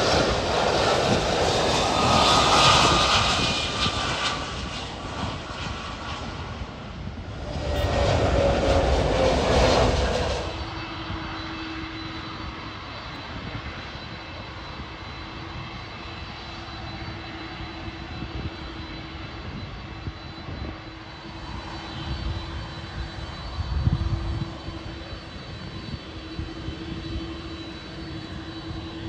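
Jet airliner passing low overhead as it comes in to land: the loud rush of its engines, with a whine falling in pitch as it goes by, stopping abruptly about ten seconds in. After that, a quieter steady hum with a low drone, swelling briefly near the end.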